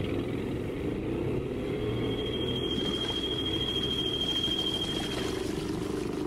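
Radio-drama sound effect of a small boat's turbine motor running: a steady low rumble, with a thin high whine joining about two seconds in and holding for a few seconds.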